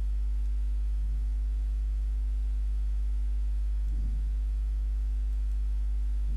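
Steady low electrical mains hum picked up by the recording, with fainter higher hum tones stacked above it. Two faint, brief soft sounds come about a second and four seconds in.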